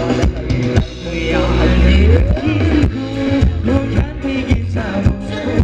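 Live band playing Thai ramwong dance music: a steady drum beat about twice a second over a heavy bass line, with a melody coming in about a second in.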